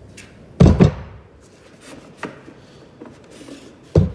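Wooden knocks as the cross bars are slid out of a wooden beehive frame jig: two heavy thuds, one about half a second in and one near the end, with a few light taps between.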